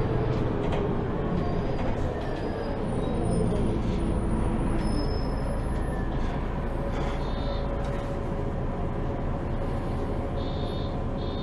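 Inside a MAN Lion's City G articulated city bus under way: steady engine and road rumble, with a few brief high-pitched tones in the second half.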